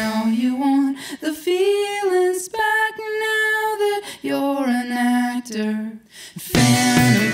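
A man's voice singing alone, high and held, with the band dropped out. The full rock band, guitar and bass, comes back in near the end.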